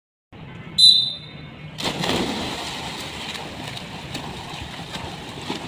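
A single short, shrill whistle blast starts the race, followed about a second later by swimmers diving in and a steady sound of splashing, churning water.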